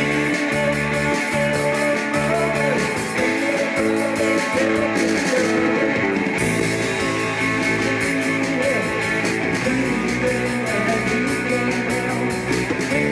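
Live rock band playing an instrumental passage on electric guitar, electric bass and drum kit, with no singing.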